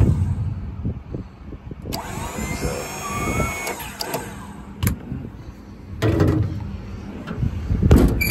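Rumbling handling noise, with a faint wavering whine about two to three seconds in and a few sharp clicks. Near the end comes a louder click and knock as the stainless paddle latch on a service-body compartment door is pulled.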